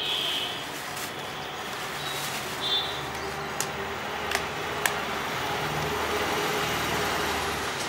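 Steady background noise with an engine running, two short high beeps (one right at the start, one near the middle), and a few sharp clicks.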